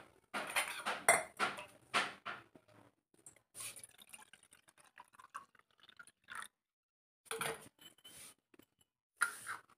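Water poured from a steel jug into a brass pot, splashing most strongly in the first two or three seconds as the pot starts to fill. Later come a few separate clinks of small metal vessels being set down.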